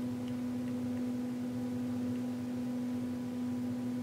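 A steady electrical hum: one unchanging low tone with fainter overtones above it.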